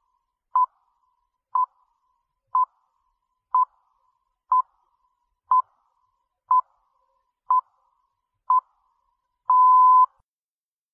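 Short electronic beeps at about 1 kHz, evenly spaced one a second, nine of them, then one longer beep of about half a second near the end: a countdown pip signal in the time-signal pattern of short pips ending in a long one, marking the start of the exam recording.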